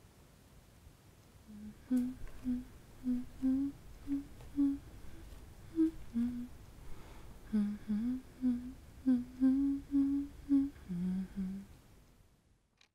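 A woman humming a simple tune, one short note after another at a middle-low pitch; it begins about a second and a half in and stops shortly before the end.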